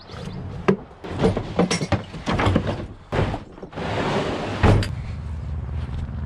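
Wooden drawers of a homemade truck-bed camper unit being slid and handled: a run of wooden knocks and scrapes, a longer rushing slide, and a hard thud a little before the five-second mark. After that a low steady hum carries on.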